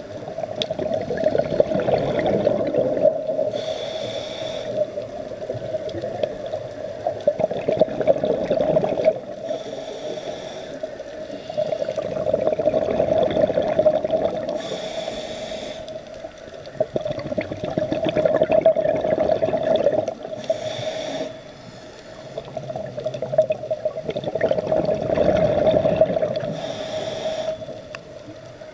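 Scuba diver breathing through a regulator: short hissing inhalations alternating with longer stretches of exhaled bubbles, about five breaths.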